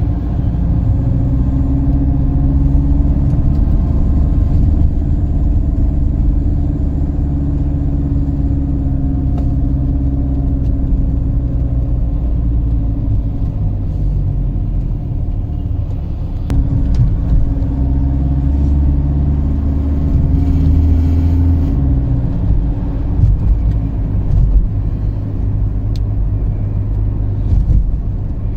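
Car driving along a road: a steady low engine and road rumble.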